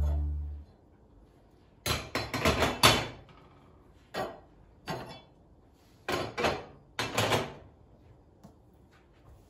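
Intro music fades out, then a series of sharp knocks and clatters from hard kitchen items being handled and set down: a quick cluster about two seconds in, two single knocks, then two more short clusters.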